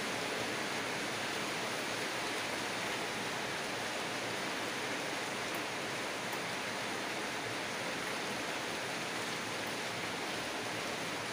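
Steady, even hiss of background noise, unchanging throughout, with no speech.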